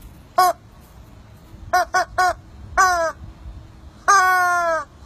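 Yellow rubber chicken squeezed repeatedly: six squawks. There is a short one, then three in quick succession about two seconds in, another just after, and a long drawn-out one near the end that sags slightly in pitch.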